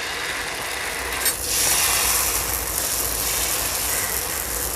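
Dosa batter sizzling on a hot oiled griddle as a ladle spreads it in circles, the ladle rubbing and scraping over the pan. A light tap about a second in, after which the hiss grows a little louder.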